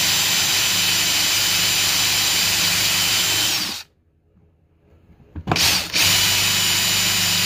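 Power drill boring into the wooden side of a drawer box with a 3/8-inch Forstner bit, running at a steady whine. It stops a little under four seconds in, gives a short blip after a pause, then runs steadily again.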